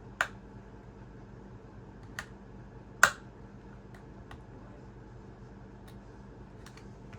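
Scattered sharp clicks and taps of small repair tools and parts against a smartphone's frame during disassembly, about seven in all, the loudest about three seconds in, over a steady low hum.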